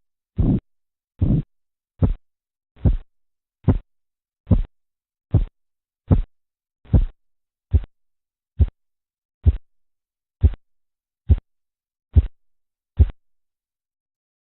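Korotkoff sounds heard through a stethoscope over an artery as the blood-pressure cuff deflates: about sixteen evenly spaced pulse beats, a little under a second apart. The first few are fuller and longer, the later ones short, sharp taps. They stop about 13 seconds in, the disappearance of the sounds that marks the diastolic pressure.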